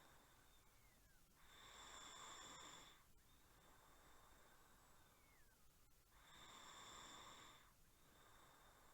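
Faint snoring in a slow, even rhythm. Two longer snores come about five seconds apart, with quieter breathing between them.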